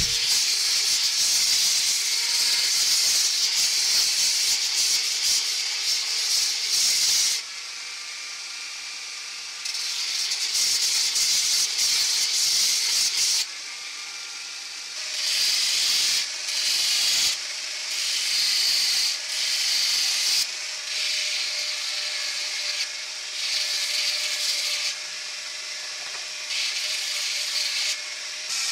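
Belt grinder grinding a steel knife blade against its contact wheel: a harsh hissing rasp in long passes, then several shorter ones from about halfway, with the belt running quieter between passes.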